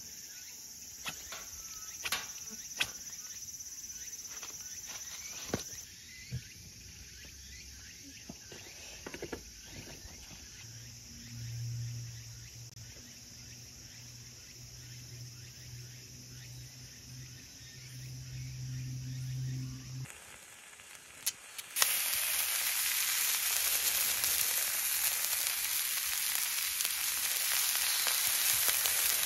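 Beef steaks and sausages sizzling on a hot steel griddle plate over a wood fire: a loud, steady hiss that starts suddenly about two-thirds of the way in. Before it come scattered faint clicks and snaps, then a low steady hum.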